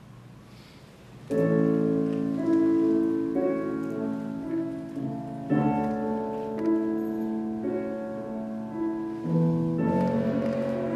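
Slow piano music with long held chords that change every second or two, coming in about a second in after a quiet pause.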